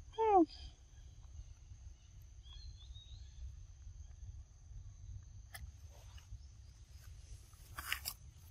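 A young macaque gives one short squeal that falls sharply in pitch right at the start, then only faint low background rumble remains, with a brief rustle near the end.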